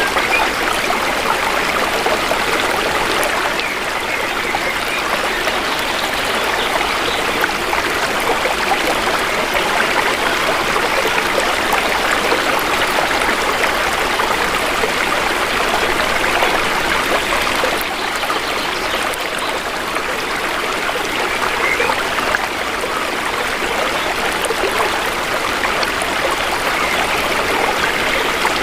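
Shallow river water flowing and trickling steadily, an even rushing sound with no breaks.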